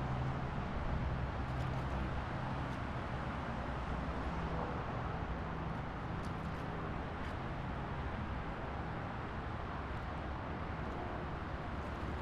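A vehicle running steadily: a low engine hum under a constant rushing noise, the hum fading somewhat after the first few seconds.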